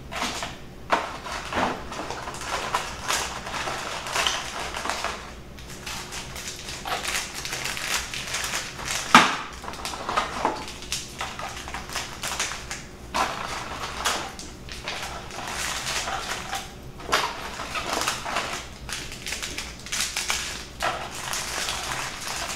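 Paper-wrapped tea bag packets rustling and crinkling as they are handled and packed into a basket, with scattered light clicks and taps; one sharper knock about nine seconds in.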